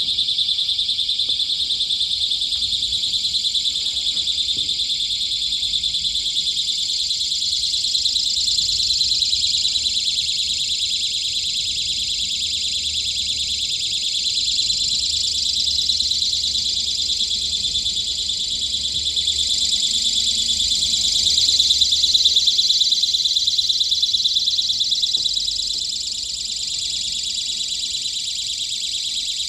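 Continuous high-pitched electronic alarm buzz with a fine rapid flutter. It swells a little about three-quarters through and eases slightly near the end.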